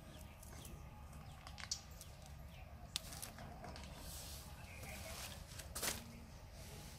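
Faint rustling and a few light clicks from hands handling grafted mango seedlings and their plastic wraps, over a low steady rumble.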